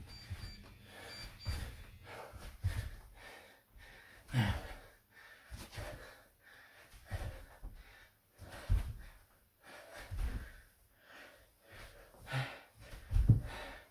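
Hard, irregular breathing and panting from exertion during jump lunges, with dull thuds of bare feet landing on a carpeted floor at each jump.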